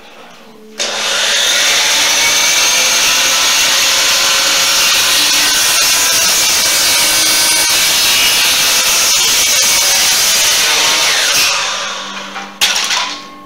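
A DeWalt chop saw starts suddenly about a second in and runs loud and steady, its blade cutting through wood for about ten seconds. Near the end it is released and spins down, followed by a sharp clack.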